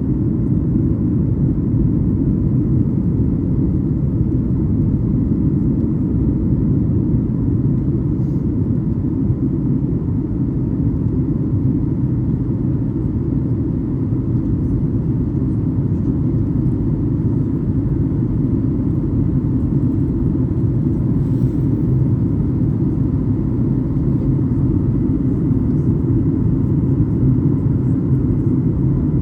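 Steady low rumble of a Boeing 737-8-200's jet engines heard inside the passenger cabin, with a faint steady whine above it.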